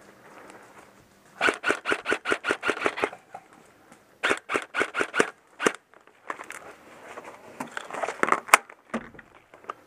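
Airsoft rifle firing rapid strings of shots: sharp popping clicks about seven a second, one string starting about a second and a half in and a second starting after a brief pause, followed by more scattered clicks.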